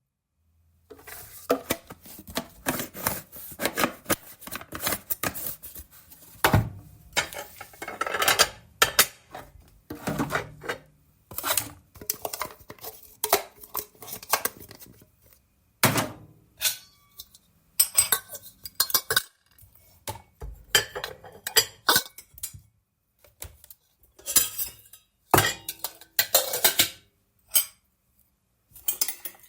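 Dishes and cutlery being handled and put away: an irregular run of clinks and clatters of plates and metal utensils knocking together, with short pauses between.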